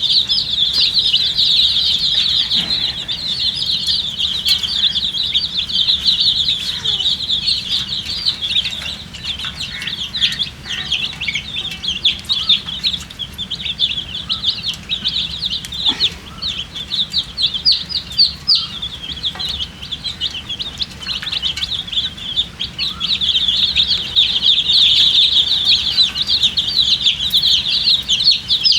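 A flock of baby chicks peeping continuously, many short high chirps overlapping in a dense chorus.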